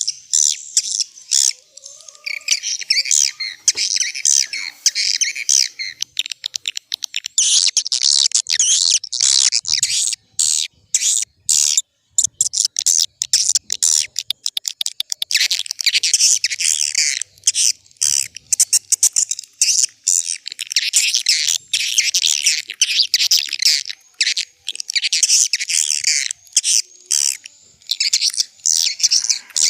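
Swiftlet lure-call recording: a dense, high-pitched chorus of swiftlet twitters and chirps with many rapid clicks, coming in bursts separated by short gaps. It is the sound played at a swiftlet house to draw swiftlets in.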